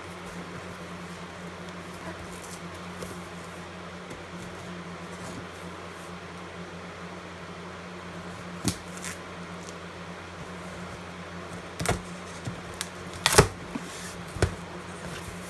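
Cardboard shipping box being opened by hand: a few sharp knocks and clicks of the cardboard in the second half, the loudest near the end, over a steady low hum.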